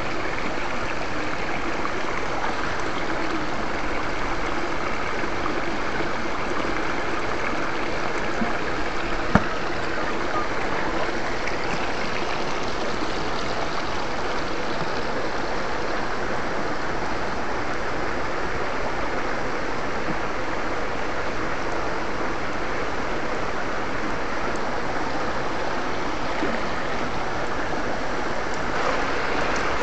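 Shallow rocky stream running steadily, water rushing and gurgling close by, with a single sharp click about nine seconds in.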